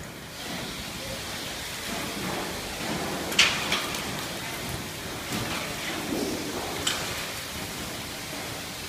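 Steady rushing noise like rain or moving air, with a few sharp clicks or knocks, two close together about three and a half seconds in and one near seven seconds.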